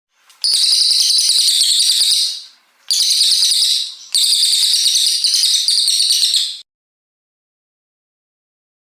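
A cililin coklat songbird singing rapid, high-pitched warbling phrases in three bursts, the last the longest, stopping about two-thirds of the way in.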